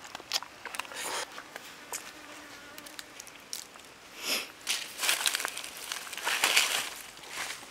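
Whole fish and vegetable skewers grilling on a wire rack over charcoal embers, sizzling and crackling in irregular swells with scattered sharp pops.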